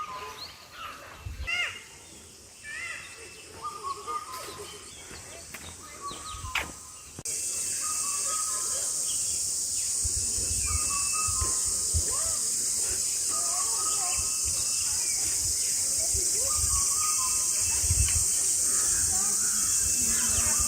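Wild birds calling in short repeated whistled phrases. About a third of the way in, a loud, steady high-pitched hiss begins and covers the calls.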